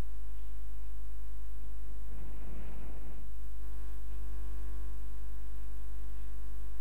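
Steady electrical mains hum with a stack of higher overtones, joined by a brief rustling noise a little over two seconds in.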